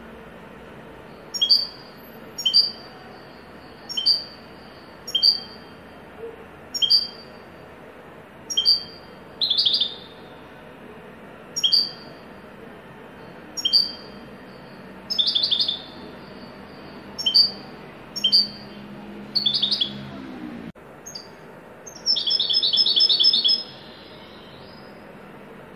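European goldfinch singing: sharp single chirps about once a second, broken by short rapid trills, with a longer trill of about a second and a half near the end.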